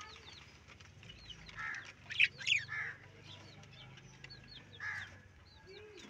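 A flock of budgerigars chirping and chattering, with many quick high chirps throughout and a few louder, sharper calls about two seconds in.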